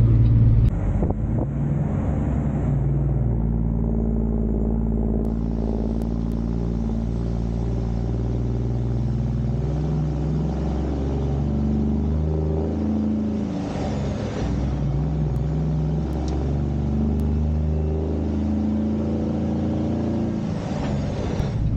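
Peterbilt semi truck's diesel engine running inside the cab as the rig swings wide through a turn, its pitch rising and falling with engine speed.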